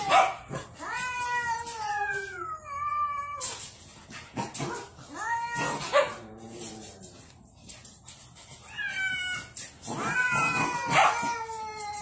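Cat yowling in long, drawn-out calls that fall in pitch, about five of them with short pauses between. These are the warning yowls of a cat being approached by a puppy.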